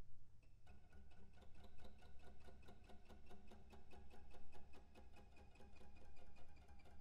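Soft contemporary chamber-ensemble music: a rapid, even ticking of short repeated tapped or plucked notes, several a second, with a few held pitches ringing under it, starting about half a second in.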